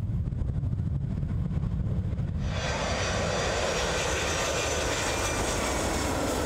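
Jet airliner engines at takeoff thrust: a low rumble, then about two and a half seconds in the loud roar of the jet blast comes in and holds steady.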